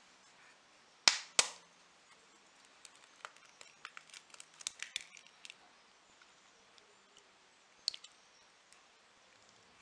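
An egg tapped twice sharply against the rim of a bowl, followed by a run of faint crackling ticks as the shell is broken open, and one more sharp click near the end as the egg goes into the batter.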